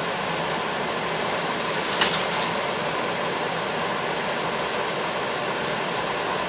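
Steady rushing hiss, like a heater or ventilation fan running, with a short crinkling rustle about two seconds in.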